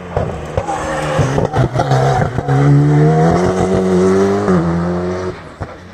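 Rally car engine, with a few sharp cracks as the car comes into a hairpin, then accelerating hard out of it, the engine pitch climbing. The pitch dips at a gear change about four and a half seconds in, and the sound fades as the car pulls away.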